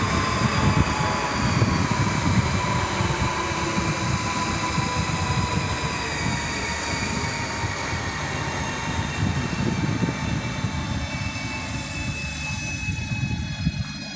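Renfe Cercanías Civia (class 465) electric multiple unit running on the line, a steady rumble with a traction-motor whine that falls slowly in pitch. Near the end a second, higher whine sets in, falling as well.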